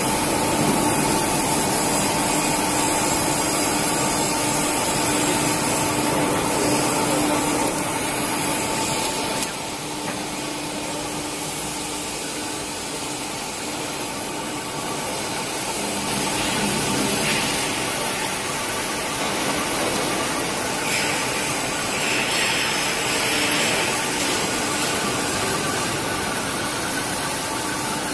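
Gantry CNC machining center milling a large casting under coolant spray: steady cutting and spindle noise with a constant hum. A sharp click comes about nine seconds in, and after it the machine runs a little quieter.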